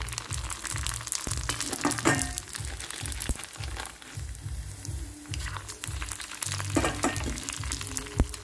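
Golgappa puris sizzling and crackling as they deep-fry in hot oil, over background music with a steady low beat. One sharp clink near the end.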